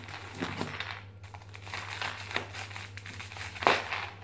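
Plastic bubble-wrap packaging crinkling as it is handled and cut open with scissors, with a louder burst of crinkling near the end.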